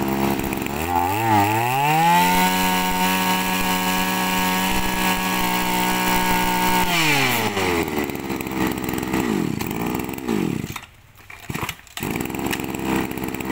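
Komatsu 23 cc two-stroke brush cutter engine revved to full throttle about two seconds in and held there for about five seconds. The throttle is then released and it drops back to a wavering idle, with the level dipping briefly twice near the end.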